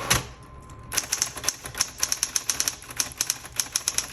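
Smith Corona Coronet Automatic 12 electric typewriter typing past the right margin with the margin release engaged. One clack at the start, then from about a second in a fast, even run of key strikes, about six a second, over the machine's low motor hum.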